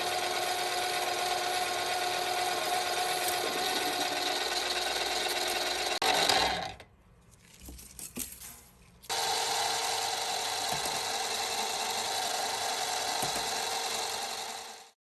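Mini lathe running, its motor whining steadily under the sound of the turning. It drops out for a couple of seconds about seven seconds in, comes back at a different pitch, and stops suddenly near the end.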